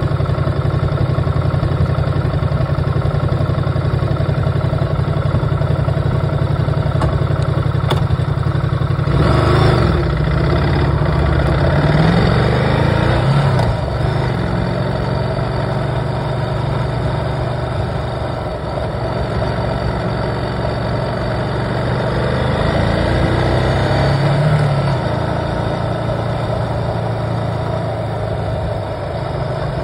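A vehicle engine running while driving, a steady low hum with the pitch rising and falling as it revs around ten to fourteen seconds in and again about twenty-five seconds in.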